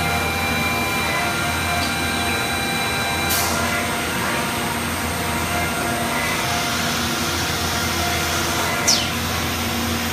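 CNC woodworking machine running steadily, a continuous motor hum with several steady whining tones. Twice, about three seconds in and again near the end, a brief high swish that falls in pitch.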